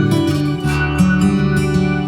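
Background music led by plucked strings, like an acoustic guitar, with a steady run of notes.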